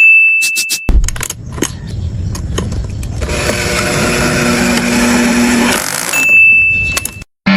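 A run of sharp clicks, then a small motor or power tool running steadily for about five seconds, with a steady whine in the middle of the run.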